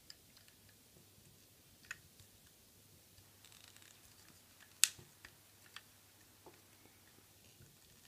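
Hard plastic parts of a Transformers action figure and its gun accessory clicking and tapping together as the gun's peg is pushed into the figure's hand without seating. A few scattered light clicks with faint handling rustle, the sharpest click about five seconds in.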